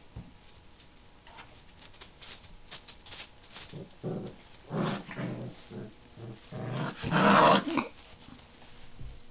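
Five-week-old puppies growling while they play and chew on soft toys. At first there are only small clicks of chewing and scuffling. Then come several short growls, the loudest about three quarters of the way through.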